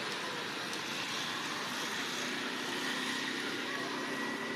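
A steady mechanical drone over an even background hiss, with a faint held high tone coming in about two seconds in.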